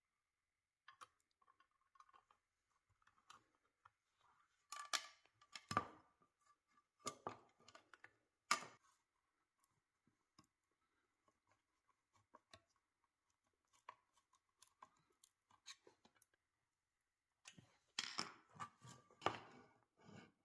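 Small metallic clicks, taps and scrapes of brass toaster parts being fitted together and a screw being turned with a screwdriver. A few sharper knocks come about five, six and eight seconds in, and a cluster of handling knocks near the end as the brass box is set down and turned over.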